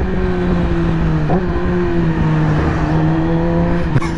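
2020 Yamaha YZF-R6's inline-four engine running under way at steady high revs, its pitch nearly constant. A brief break in the tone comes about a second in, and a short sharp knock near the end.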